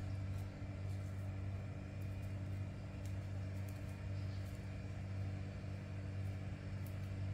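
Steady low mechanical hum, like a motor or appliance running, with a few faint clicks.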